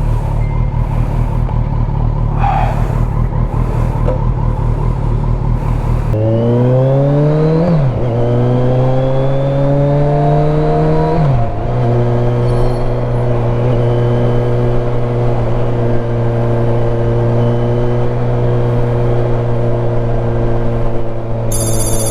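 Kawasaki Versys 1000 SE inline-four engine with an Arrow exhaust, idling low, then pulling away about six seconds in. The revs climb, drop sharply at an upshift, climb again, then settle to a steady cruising note.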